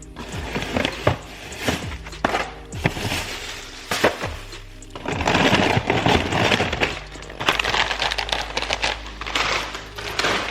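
Frozen packages of crab legs and shrimp being handled, with sharp knocks and clatter, then long rustling and crinkling of plastic, over steady background music.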